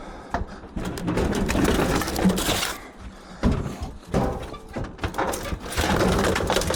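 Irregular knocks, clicks and rustling as scrap items are handled and set down.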